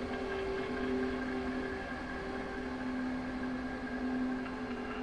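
Quiet sustained drone of two low held tones over a faint hiss, an eerie ambient background-music pad.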